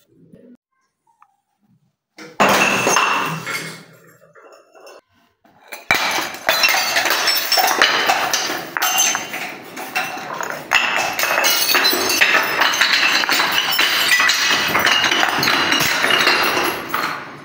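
Glass bottles filled with gel beads smashing on a hard stone floor and stairs: one crash about two seconds in, then from about six seconds a long, dense run of breaking glass, clinking shards and beads scattering.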